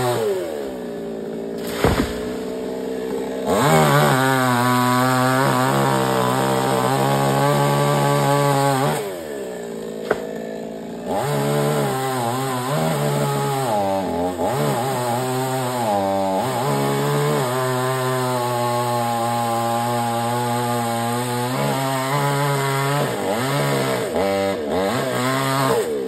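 Two-stroke chainsaw running at high revs while cutting wood, its pitch wavering under load. It drops back to idle twice and revs up again.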